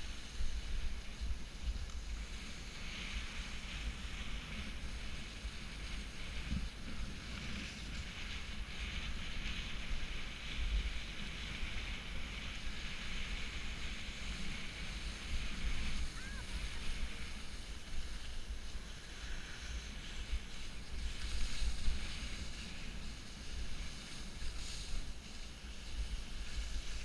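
Skis hissing and scraping through wet, heavy spring slush on a downhill run, with wind buffeting the microphone as a low rumble underneath.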